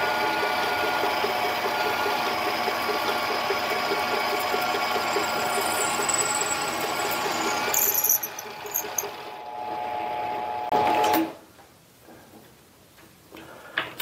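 A mini lathe runs while a 23/64 in twist drill in the tailstock chuck cuts into a spinning 6061 aluminium blank, with a steady, evenly pulsing machine sound. About eight seconds in the drill backs out of the hole and the sound drops. About three seconds later the lathe is switched off and the sound cuts off, leaving a few light clicks.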